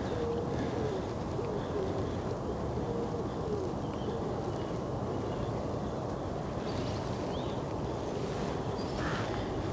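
Steady rush of strong wind on the microphone by the river, with birds calling over it. A wavering low call repeats through the first few seconds, and a short harsher call comes near the end.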